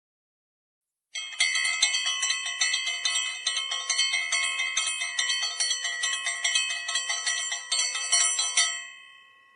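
A metal bell ringing rapidly and repeatedly for about seven seconds, starting about a second in, then ringing out and fading.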